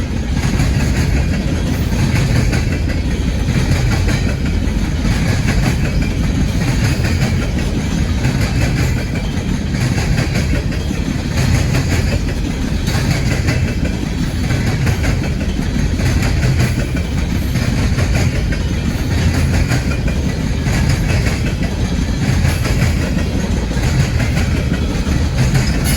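Freight train cars rolling steadily past, with a continuous low rumble and wheels clicking rhythmically over the rail joints.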